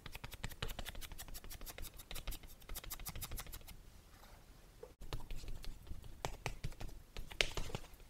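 Makeup puff patting a cream base onto a mannequin head's face: a quick run of soft, moist taps, about eight to ten a second. They ease off around four seconds in, then resume more unevenly, with a few louder pats near the end.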